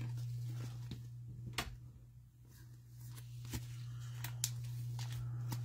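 Trading cards and plastic card sleeves being handled: a few scattered soft clicks and rustles over a steady low hum.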